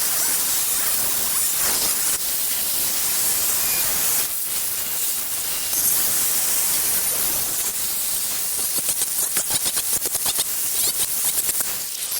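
A power tool cutting a sheet-steel patch piece for a rust hole: a loud, harsh, steady hiss that breaks into a fast rhythmic pulsing over the last few seconds.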